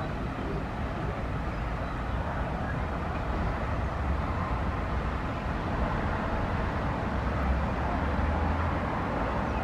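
Distant low rumble of an Airbus A380's four jet engines on final approach and landing. It is steady and grows a little louder about four seconds in.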